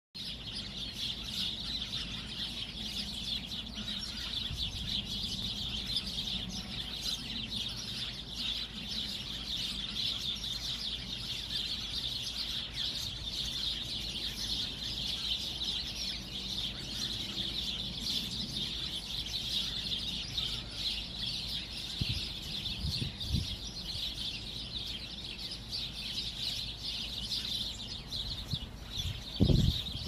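Many birds chirping at once in a dense, unbroken chatter of short high calls from a citrus tree. A single low knock sounds near the end.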